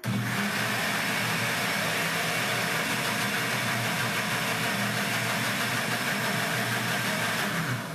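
Philco countertop blender running steadily at speed, mixing a thin liquid cake batter; the motor starts suddenly and cuts off just before the end.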